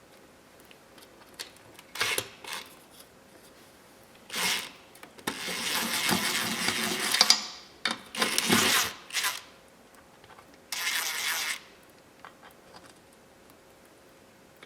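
A handheld power tool run in about five short bursts on metal work, each cut off abruptly, the longest about two seconds near the middle.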